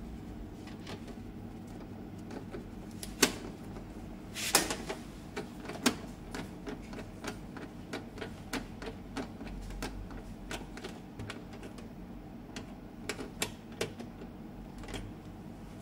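Irregular small clicks and ticks of a hand screwdriver turning a screw back into the plastic waste ink pad cover on the underside of an Epson L360 printer, with a few sharper clicks about three to six seconds in and again near the end.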